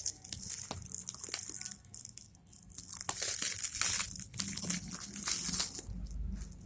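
Packaging being handled and opened, crinkling and rustling in irregular bursts with small clicks.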